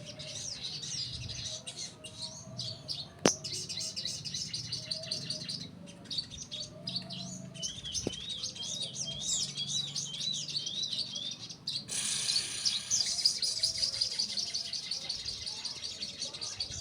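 Small caged songbirds singing in rapid, high twittering phrases, with a repeated rising-and-falling note about twice a second in the middle. A sharp click sounds about three seconds in.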